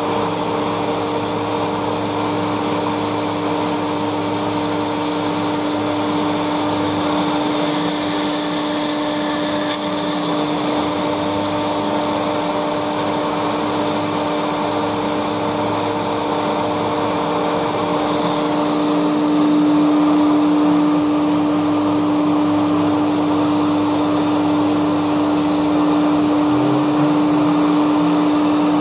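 Laguna Smartshop II CNC router running, its spindle cutting through foam with a steady whine over a constant rushing hiss. It gets slightly louder about two-thirds of the way through.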